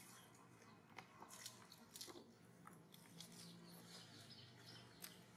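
Quiet, with a few faint, scattered clicks and crunches: a long-tailed macaque chewing food.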